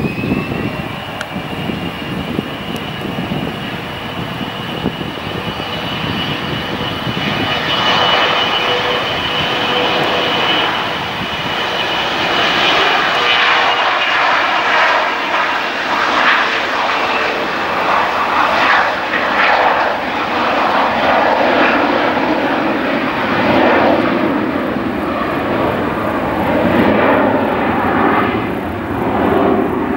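Twin rear-engined business jet taking off. A turbine whine that has just risen with the engines spooling up holds as a steady high tone, then the loud jet noise of the take-off roll and climb builds from about seven seconds in and stays strong.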